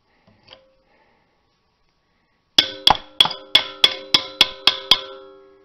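A 19 mm socket being knocked onto a lug nut: nine sharp metal strikes, about three or four a second, each leaving the socket ringing. The chrome cap of the lug nut has swelled over its rusty core, so the socket must be hammered on.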